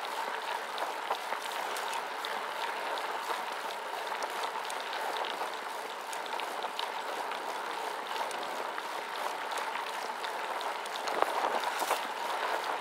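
Gravel bike tyres rolling over a loose dirt road: a steady crunching noise dotted with many small clicks of stones and rattles from the bike, with a louder clatter about eleven seconds in.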